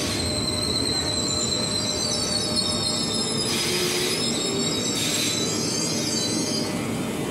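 Train wheels or brakes squealing at the station in several high, slightly wavering tones over a steady rumble of the railway, with two short hisses about three and a half and five seconds in.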